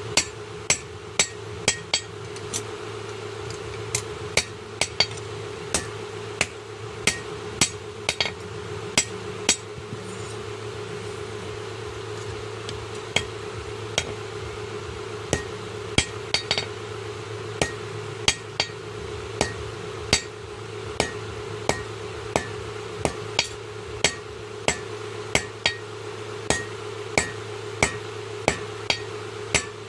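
Blacksmith's hammer striking steel on an anvil while forging a khurpi, about two blows a second, each with a short metallic ring; the hammering pauses for about three seconds a third of the way through. A steady hum runs underneath.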